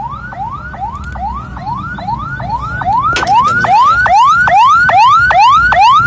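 Senken electronic ambulance siren sounding a fast yelp: a rising sweep that drops back sharply, about three times a second. It grows louder about halfway through.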